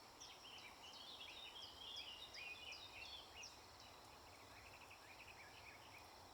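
Faint, rapid birdsong chirps and twittering over a quiet background hiss, busiest in the first half and thinning out afterwards.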